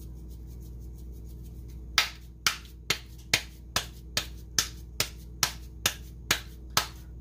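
Hands patting a ball of corn masa dough flat into a thin tortilla: a steady run of sharp slaps, about two a second, starting about two seconds in.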